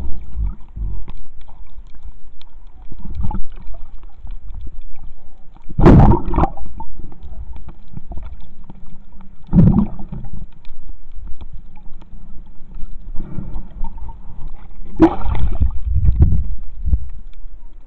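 Muffled water noise picked up by a camera held underwater while snorkeling: a steady low rumble with louder gurgling bursts every few seconds, the strongest about six and ten seconds in and again near the end.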